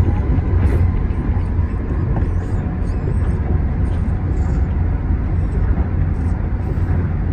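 Tama Toshi Monorail straddle-beam train running along its concrete guideway on rubber tyres, heard from the front of the cab: a steady low rumble with a hiss of running noise.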